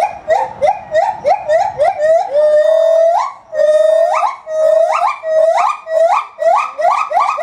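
Gibbon singing: a string of loud whooping notes, each sliding sharply upward in pitch, about three a second. Near the middle they stretch into two longer held notes that flick upward at the end, then quicken again toward the end.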